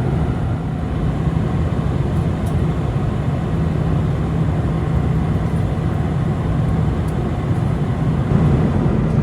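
Steady cabin noise inside a Boeing 747-400 airliner: a constant rush of engine and airflow noise from its four turbofans, with a low hum underneath.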